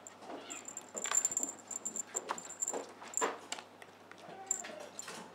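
A kitten playing with a plush toy: irregular soft knocks and scuffs as it pounces on, bats and grabs the toy on the pen floor. A thin, high tone comes and goes.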